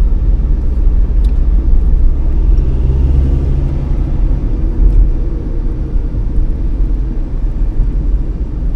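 A car on the move: a steady low rumble of engine and road noise, with the engine hum rising briefly about three seconds in.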